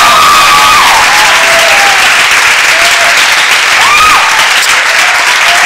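Audience at a poetry slam applauding loudly, with a few long whoops from the crowd over the clapping.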